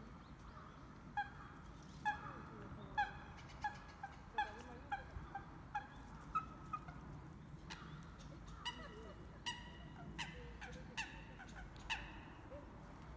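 Eurasian coots calling: a long run of short, nasal, honk-like calls, about one or two a second, some in quick pairs.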